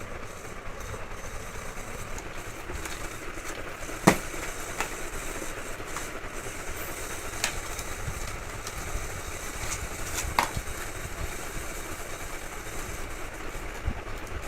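Steady low rumbling background noise with a few sharp clicks, the loudest about four seconds in.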